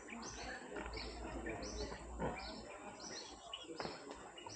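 A bird calling, repeating a short high note about twice a second, with fainter calls behind it.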